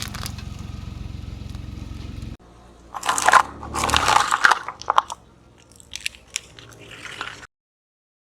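A car engine runs with a low, steady rumble, cut off abruptly about two seconds in. Then something brittle is crushed in a burst of loud crunching and cracking, followed by a few fainter crackles before the sound stops dead.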